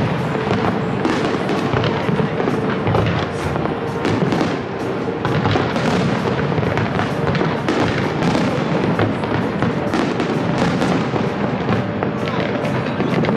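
Aerial firework shells bursting overhead, with many quick crackling reports in close succession throughout. Music plays underneath.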